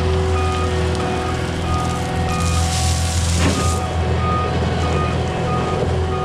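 Cat 242D skid steer's diesel engine running steadily while its backup alarm beeps repeatedly, about three beeps a second, as the machine reverses. A burst of hiss lasts about a second midway.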